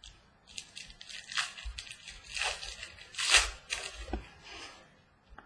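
Trading cards and their foil pack wrappers being handled: a series of rustling, crinkling and sliding sounds, loudest a little past three seconds in.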